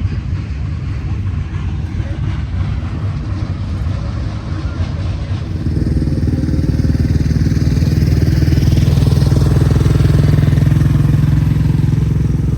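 Drag racing car's engine running steadily, close by; it gets louder about halfway through and holds a steady pitch without revving.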